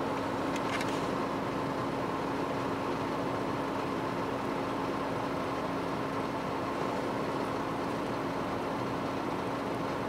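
Chevrolet Niva running, a steady engine hum with one constant low tone.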